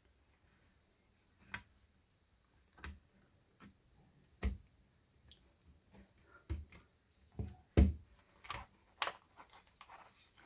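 Plastic back cover of a Samsung Galaxy Tab A being pressed onto the tablet's frame, its locking clips clicking into place around the edges: a dozen or so irregular clicks and taps, louder in the second half.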